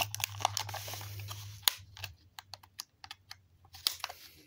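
Hot Wheels blister pack being pried open by hand: plastic and card crinkling with a run of sharp clicks and crackles. It is densest over the first couple of seconds, with one loud snap, then thins to scattered clicks.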